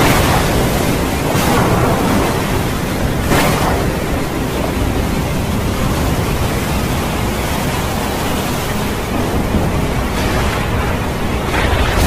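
Heavy rain pouring down onto a flooded road, a loud steady hiss with a few brief swells.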